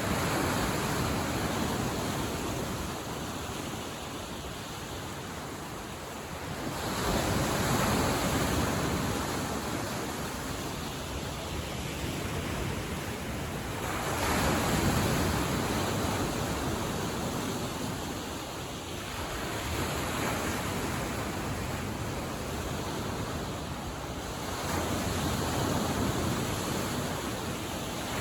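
Lake Michigan waves breaking and washing on the shore, surging about every six seconds, with wind on the microphone.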